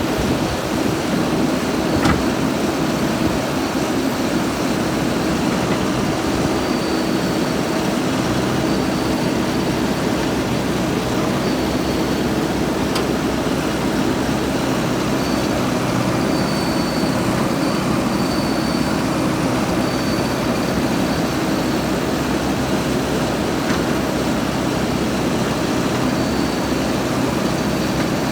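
JCB backhoe loader's diesel engine running steadily, with a single sharp knock about two seconds in.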